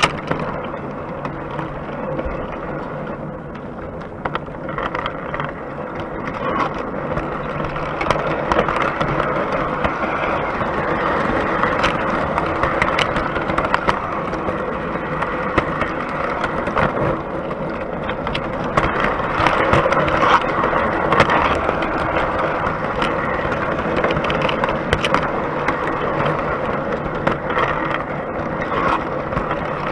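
O gauge three-rail model train running, heard from on board: a steady rolling rumble and clatter of wheels on track, with frequent sharp clicks.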